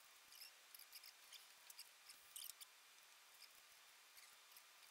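Near silence: faint room tone with scattered, irregular high-pitched clicks.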